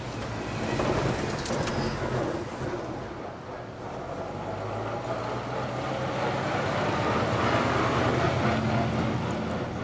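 A car goes by, then a 1935 Ford tow truck's flathead V8 engine runs as the truck drives past. It gets louder as the truck comes close around seven to eight seconds in, then eases off near the end.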